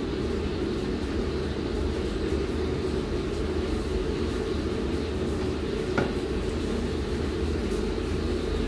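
A steady low mechanical hum with a rumble underneath, like a fan or air-conditioning unit running, with a single short click about six seconds in.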